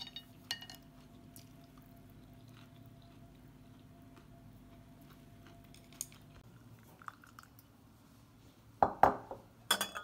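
Tableware clicks: chopsticks tapping a ceramic plate a couple of times near the start, a few soft clicks later, then a louder clatter and clink of glass and metal near the end, with a short ring.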